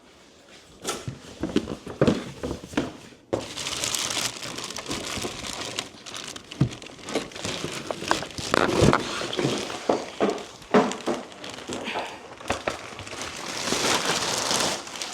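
Packaging crinkling and rustling as accessories are unwrapped from an appliance box, with scattered knocks of parts being handled. The rustling sets in about three seconds in and runs on with sharp knocks among it.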